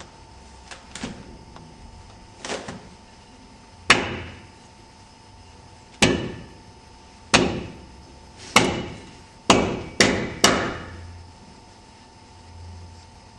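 A series of hard bangs, each with a short echoing ring: a few faint knocks, then seven loud strikes that come quicker and quicker, from about two seconds apart to half a second apart near the end.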